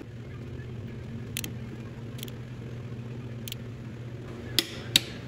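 Click-type torque wrench tightening the oil pump stud nut on a big-block Chevy: a few light clicks, then two sharp, louder clicks close together near the end as the wrench breaks over at its set torque of 60 ft-lb. A steady low hum runs underneath.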